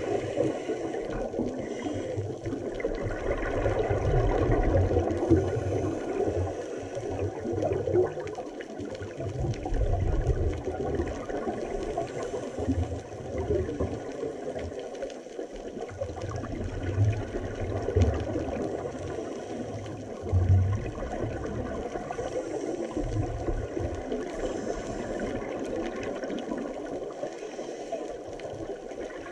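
Muffled underwater sound picked up by a camera in its waterproof housing: a steady low rushing with irregular low rumbles that come and go every few seconds.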